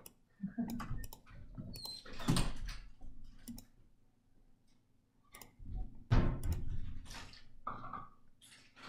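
Scattered computer mouse clicks, with two louder dull thumps about two and six seconds in.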